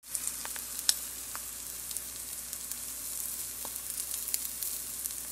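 Omelet frying in a pan: a steady sizzle with scattered small pops and crackles.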